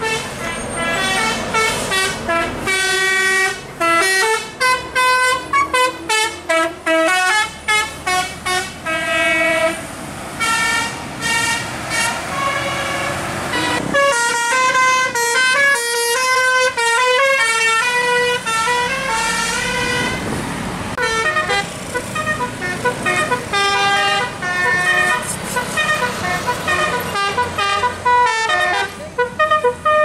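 Tour buses' telolet Basuri multi-tone horns, sounded through roof-mounted trumpets, playing fast melodic tunes of stepped notes one after another. The tunes change from phrase to phrase as different buses pass.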